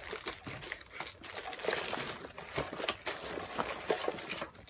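A sealed cardboard retail box being opened by hand and its cardboard insert pulled out: cardboard scraping and rubbing, plastic crinkling, and irregular small clicks and taps.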